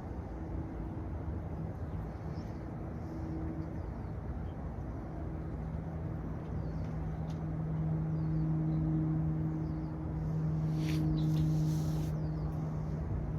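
A steady low motor hum over background outdoor noise, growing louder about eight seconds in, with a brief rustle near the end.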